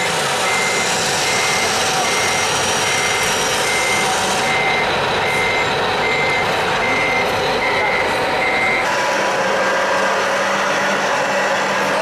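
Reversing beeper of a radio-controlled model Saurer dump truck: a steady high beep repeating a little under twice a second, stopping about nine seconds in.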